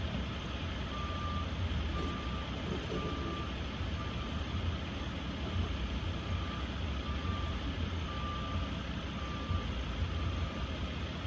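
Faint repeating electronic beep, one short beep about every second, typical of a vehicle's backup alarm, over a low steady rumble of vehicle noise.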